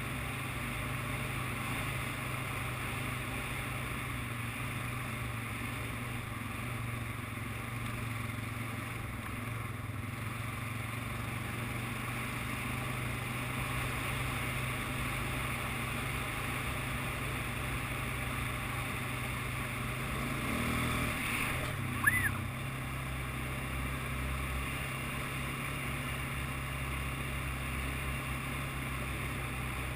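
ATV engine running at a steady speed during trail riding, a constant drone heard from on board. A single sharp knock stands out about three quarters of the way through.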